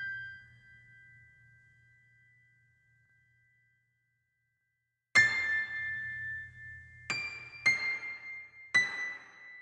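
Sparse soundtrack music of bell-like keyboard notes. One note rings out and fades away, there are about two seconds of silence, then four more notes are struck at uneven intervals, each left to ring.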